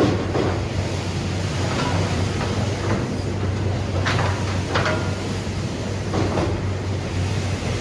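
Sawmill production-line machinery running with a steady low hum, broken by short clattering, sliding strokes every second or two.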